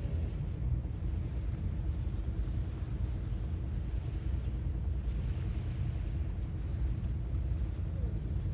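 Sea waves on the shore under a steady low rumble, with a soft wash of surf hiss swelling about five seconds in.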